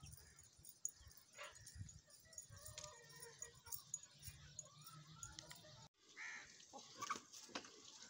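Faint, scattered calls of backyard poultry and birds, with no one sound standing out. The sound drops out completely for a moment about six seconds in.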